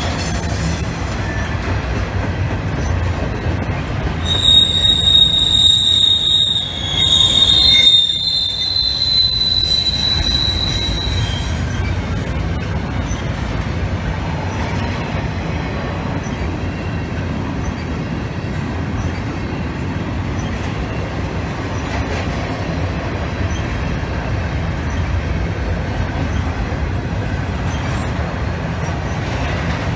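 Train rolling past with high-pitched wheel squeal, several squealing tones overlapping for roughly the first dozen seconds. After that comes a steady low rumble of the cars on the rails.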